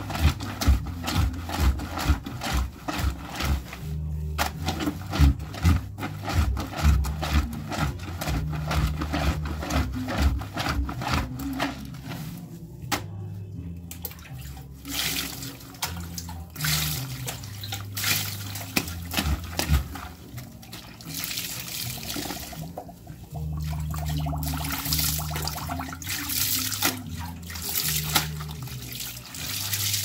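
A wet T-shirt being scrubbed by hand against the ridged scrubbing board of a concrete laundry sink in soapy water: quick rubbing strokes in the first part, then sloshing and splashing water as the garment is rinsed and wrung.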